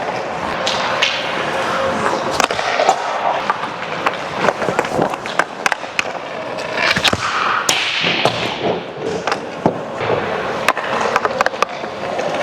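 Ice hockey skate blades scraping and carving over soft, wet ice, with sharp clacks of a hockey stick striking a puck scattered throughout.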